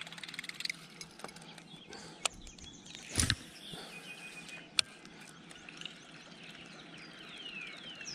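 Birds calling: a fast chirping trill at the start and a few descending whistled notes near the end. About three seconds in there is a short, louder rushing noise, and there are a couple of sharp clicks.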